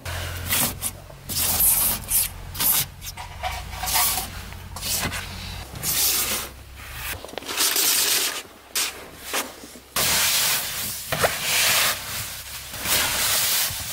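Fabric rustling and swishing in repeated bursts as a nylon down sleeping bag and the car's window curtains are pulled, folded and stuffed, over a low steady hum that stops about halfway through.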